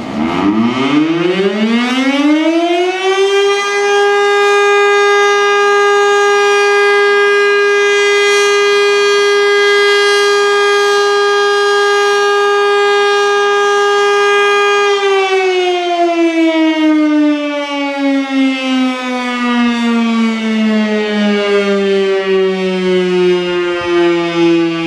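Federal Signal STL-10 outdoor warning siren sounding its daily noon test blast: it winds up over about three seconds to one loud, steady tone and holds it. About fifteen seconds in it begins a long wind-down, the pitch falling slowly.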